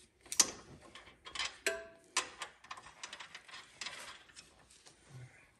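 Irregular metallic clicks, taps and clinks of hand tools and parts knocking against a car's front coilover and steering knuckle during suspension assembly, one clink ringing briefly about a third of the way in.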